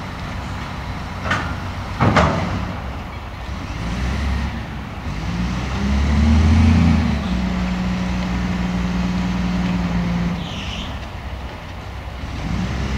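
Kalmar reach stacker's diesel engine running under load as it works its boom, revving up about four seconds in and holding steady. Two sharp metal clanks a second or two in as the container is set down on the flat wagon.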